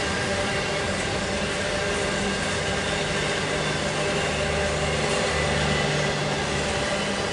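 Flatcars of a freight intermodal train loaded with truck trailers rolling past: a steady rumble of steel wheels on the rails.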